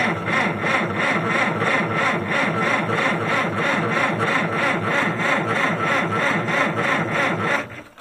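Farmall 400's gasoline four-cylinder engine being cranked by its starter, turning over in an even, rhythmic chug without catching, then the starter stops near the end. It is not turning fast enough to start: a sign of a weak battery.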